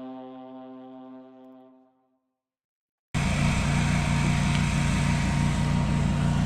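A held tone with overtones fades away over the first two seconds. After a moment of dead silence, an engine starts sounding abruptly about three seconds in and runs steadily with a rhythmic low beat.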